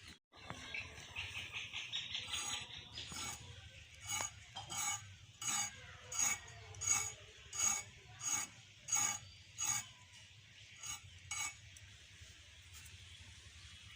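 About ten regular scraping strokes, roughly one every 0.7 seconds, preceded by a quick faint rattle.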